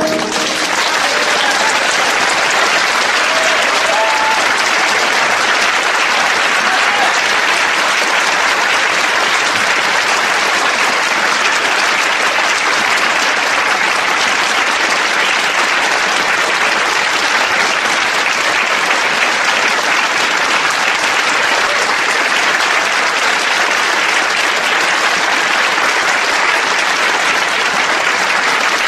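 Audience applauding steadily. The orchestra's last chord stops at the very start.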